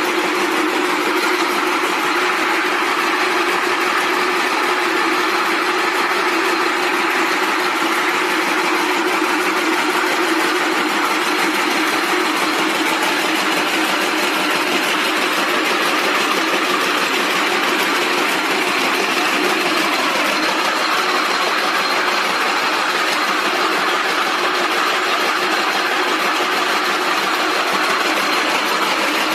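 Rope braiding machine running at speed: its bobbin carriers travelling round the track give a steady, dense mechanical clatter over a steady hum.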